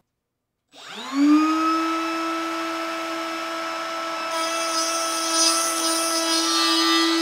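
Table-mounted trim router switching on and spinning up to a steady high whine. About three seconds later its straight bit starts cutting into a plywood board, adding a rough, hissing cutting noise over the motor.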